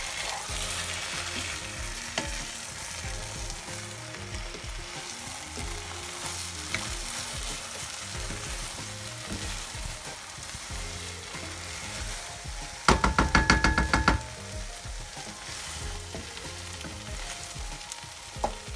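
Egg stew sizzling in a frying pan while it is stirred with a wooden spatula. About two-thirds of the way in, the spatula clatters loudly against the pan for about a second.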